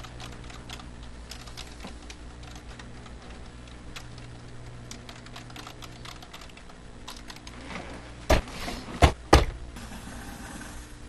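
Typing on a computer keyboard, a quick run of key clicks, then three loud knocks close together after about eight seconds.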